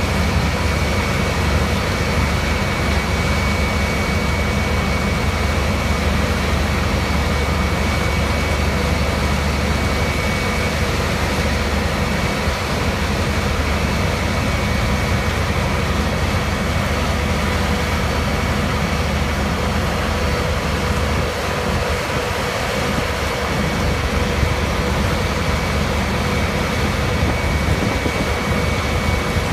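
Powerscreen Trakpactor 320SR tracked impact crusher running under load, crushing ripped and milled asphalt: a loud, steady mechanical rumble with a constant high whine over it.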